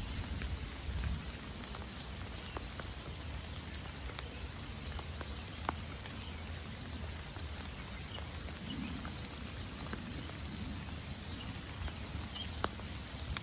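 Steady rain with scattered drops pattering on leaves, a few sharper single drips standing out over a low rumble.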